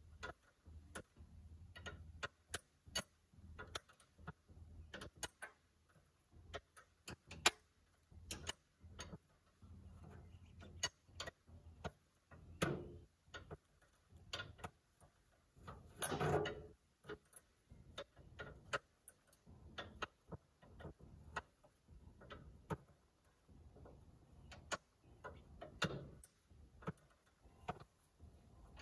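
Scattered, irregular clicks and taps of hand tools on metal during tractor repair work, with a louder, longer clunk about sixteen seconds in.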